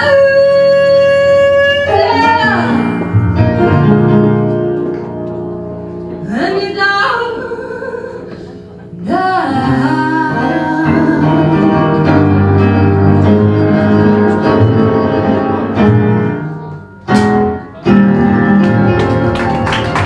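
Live blues performance: a woman sings over acoustic guitar, upright double bass and piano, opening on a long held note and then sliding through the melodic lines. The sound briefly drops out about three seconds before the end, then the band comes back in.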